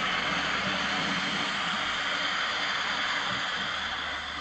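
Miniature GWR 1400-class live steam locomotive running on the track, giving off a steady hiss of escaping steam.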